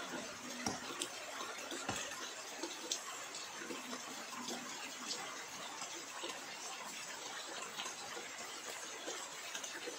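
Light rain falling: a steady hiss with scattered small ticks of drops.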